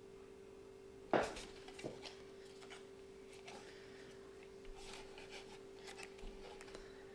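An ATX power supply being handled on a desk: one sharp knock about a second in, then light clicks and rubbing, with a faint steady hum underneath.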